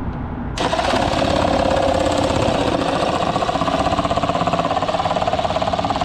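Power saw cutting through a Toyota Prius's plastic bumper cover, with a fast buzzing rattle. It bites in suddenly about half a second in and then runs steadily.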